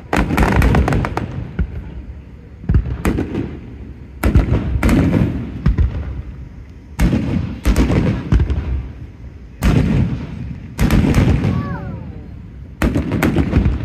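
Aerial fireworks shells bursting overhead: about a dozen loud booms in clusters of two or three, each dying away in a rumbling echo.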